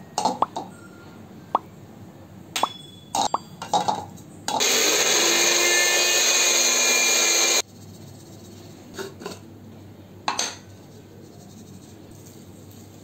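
A small electric mixer grinder runs for about three seconds, grinding dry spice powders into a masala; it starts abruptly and cuts off suddenly. Before it come a few light clinks and taps as the spices are tipped from steel bowls into the jar, and a few more taps follow.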